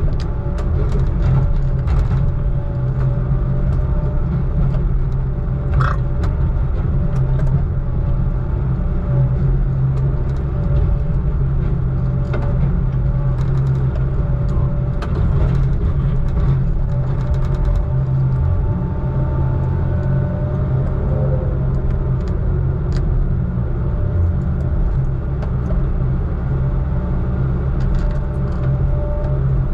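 Heavy diesel engine of logging equipment running steadily at an even speed, with scattered light clicks and rattles over it.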